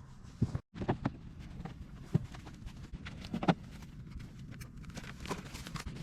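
Irregular light knocks and taps over a low steady hum, with a brief dropout about half a second in.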